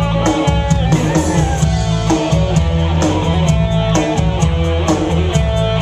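Live band playing an instrumental disco passage: electric guitar over a steady drum kit beat, with no singing.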